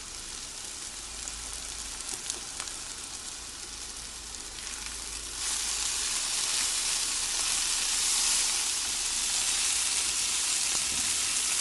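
Vegan chicken pieces sizzling as they fry in a pan, with a few light clicks early on; the sizzle grows clearly louder about halfway through.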